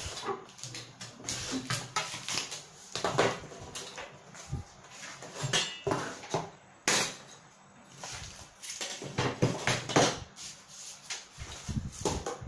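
Utility knife scoring corrugated cardboard along a ruler in a series of scratchy strokes. Between the strokes come sharp knocks and clatter as the ruler and the cut cardboard pieces are picked up and set down.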